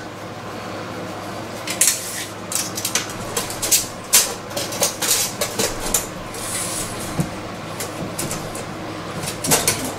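A steel tape measure being pulled out and held across a door: scattered light clicks and rattles, with a short hiss about six and a half seconds in.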